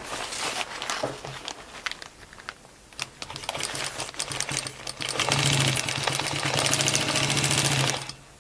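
Sewing machine tacking webbing onto the poncho: a few clicks and rustles, then the machine runs from about three seconds in, picking up to a steady fast stitching for about three seconds before stopping near the end.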